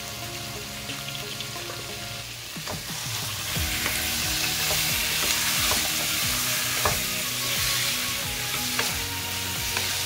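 Raw bone-in chicken sizzling in a pan of fried onion and chilli masala. From about two and a half seconds in, the sizzle grows louder as a wooden spatula stirs, scraping and knocking against the pan.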